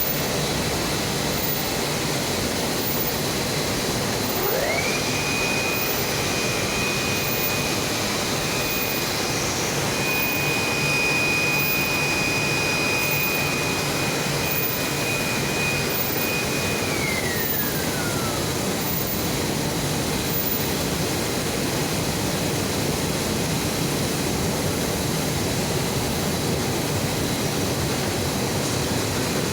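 Plastic-making machinery running with a steady loud rush of noise. A motor whine climbs quickly about five seconds in, holds steady, then winds down and fades about two-thirds of the way through.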